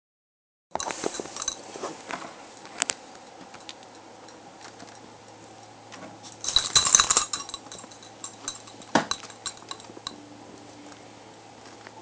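Light clinks and clicks of small hard objects, scattered, with a dense flurry of clinking about six and a half seconds in and one sharper click near nine seconds, over a faint low hum.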